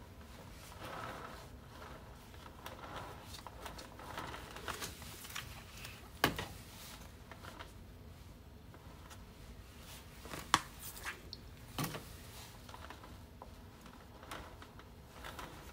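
Metal spatula spreading and smoothing cream cheese frosting around a layer cake: soft scraping and smearing. Three sharp knocks come about six, ten and a half and twelve seconds in.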